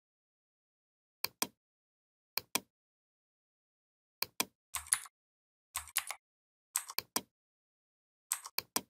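Computer mouse buttons clicking in about seven short bouts, each mostly a quick press-and-release pair of clicks, with dead silence between; the bouts near the middle are a little longer and scratchier.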